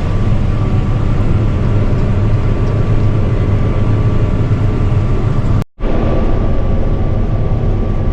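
Combine harvester running steadily while harvesting barley, a loud low drone with a faint steady whine over it. The sound cuts out for a split second about two thirds of the way through.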